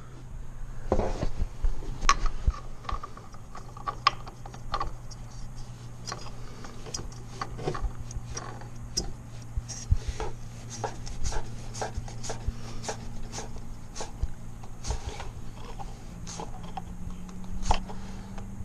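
Hands working with tools and parts: scattered clicks, knocks and rubbing, over a steady low hum.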